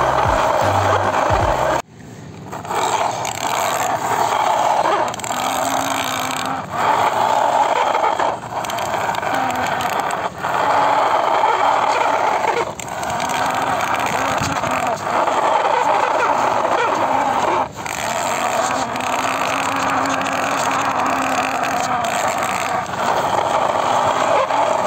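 Plastic toy vehicles pushed by hand through gritty sand on concrete: a steady scraping rattle of their wheels and bodies, cut off briefly several times and then resuming.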